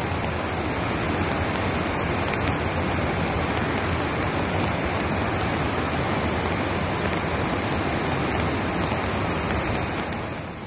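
Beas River in flood: fast, muddy floodwater rushing past in a steady, even noise that drops away slightly near the end.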